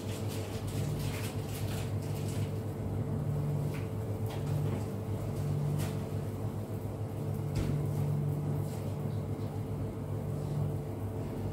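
Eggs cooking in a lidded frying pan on a gas stove: scattered faint pops and crackles every second or two over a steady low hum.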